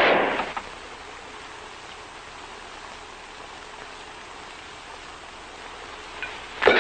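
Steady hiss of an old television soundtrack. A loud burst at the start dies away within half a second, and a sharp, loud revolver shot goes off at the very end.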